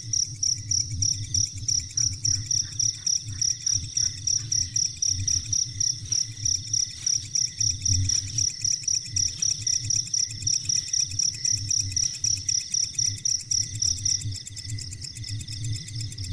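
A cricket chirping in a fast, even pulse, about five chirps a second on one high note, over a low rumble.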